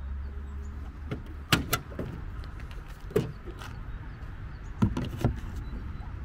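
Tesla Supercharger's charging connector being handled: sharp plastic clicks and knocks as it is lifted from the charger's holster and pushed into a VW ID.3's charge port, about five knocks in all, two of them close together near the end as the plug goes in. A low steady rumble runs underneath.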